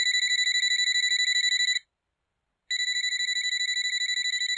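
Alarm-clock bell sound effect ringing as a fast, even trill of about ten strokes a second. It comes in two bursts of about two seconds each, with a short pause of about a second between them.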